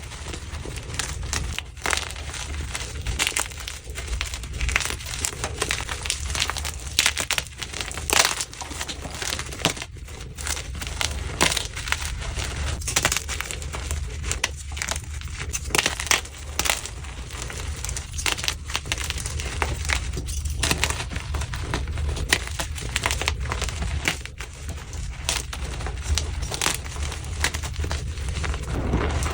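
Blocks of gym chalk (magnesium carbonate) being crushed and crumbled by hand, a dense, irregular run of crisp crunches and crackles.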